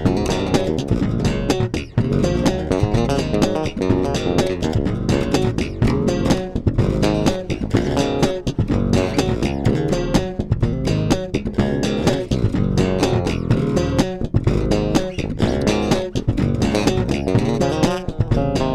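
Five-string electric bass played fingerstyle, a continuous groove of quick notes with no pauses.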